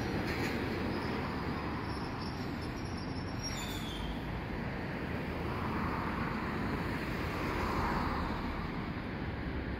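Hiroshima Electric Railway streetcar No. 714 pulling away from a stop, its running noise fading, mixed with road traffic. A brief falling tone comes a little before four seconds in, and cars pass close by about six and eight seconds in.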